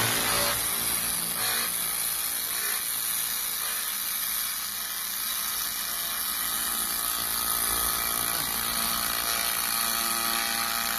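500 W pulsed laser cleaner ablating paint from a perforated steel sheet: a steady high-pitched hissing buzz as the beam burns the coating off.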